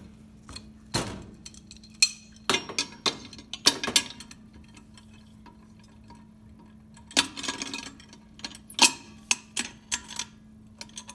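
Metal clinks and knocks of a stainless steel band clamp being picked up and fitted around a centrifugal pump's casing flange, in small clusters with brief ringing after some strikes.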